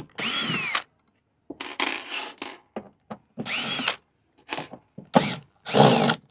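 Cordless drill-driver run in several short trigger bursts, its motor whine rising and falling in pitch each time, while backing screws out of a speaker cabinet.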